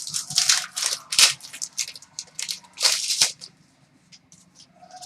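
Trading card pack being handled: an irregular run of short crinkling, rustling swishes from the wrapper and the cards being slid apart. It thins to a few faint ticks near the end.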